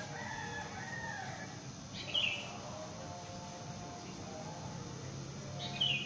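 Rooster crowing in the distance, with two short, sharp bird chirps, one about two seconds in and one near the end, which are the loudest sounds. A low steady hum runs underneath.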